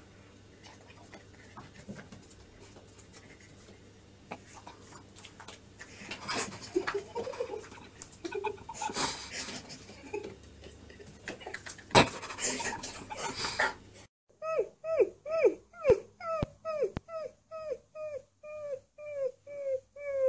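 Scrabbling and knocks of a cat's paws as it leaps at a wall, with one sharp knock about two-thirds of the way through. Then a husky-type puppy gives a quick run of short pitched yelps, about two a second, each bending down in pitch.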